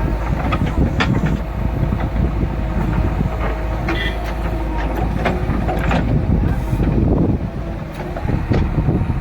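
Diesel engine of a JCB backhoe loader running under load, a steady low rumble with scattered clanks and knocks from the working machinery.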